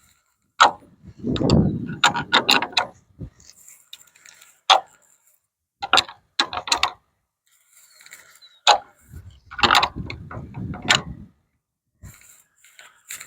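Irregular bursts of sharp mechanical clicks and clanks from hand-tool work on the stall frame, in several separate clusters with short pauses between them.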